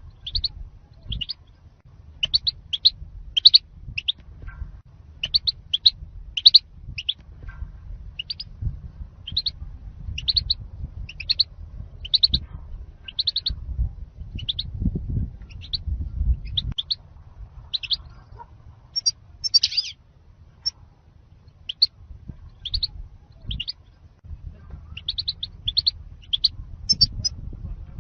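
European goldfinch calling: short, high twittering notes in quick clusters of two or three, repeated about once a second, over a faint low rumble. This is the 'zalzal' goldfinch sound that bird-keepers play as a lure call.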